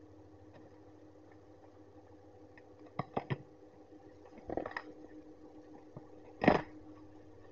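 Scissors handled and then cutting into a parcel's black plastic wrapping: three quick clicks about three seconds in, a crinkling rustle around four and a half seconds, and one loud snip-crunch through the plastic around six and a half seconds. A steady low hum runs underneath.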